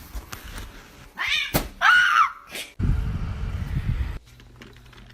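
A cat meowing twice, each call rising then falling in pitch, followed by a low rumble that cuts off suddenly.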